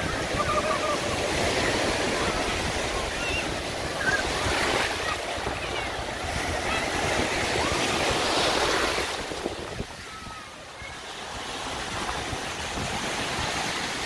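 Small sea waves breaking and washing up the sand in a steady, swelling rush, with faint voices of people on a crowded beach mixed in.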